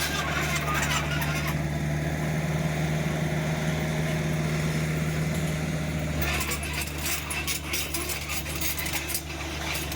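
Excavator's diesel engine running steadily under load, with rapid clattering and scraping setting in about six seconds in.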